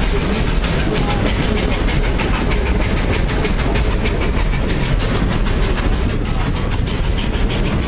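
Open-air passenger car of a steam-hauled excursion train rolling along the track: a steady rumble with a quick, even rhythm of clicks and rattles from the wheels and car.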